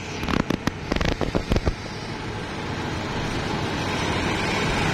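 A quick, irregular run of sharp clacks, then the steady rumble of an arriving Daewoo diesel railcar train, growing louder as it draws up alongside.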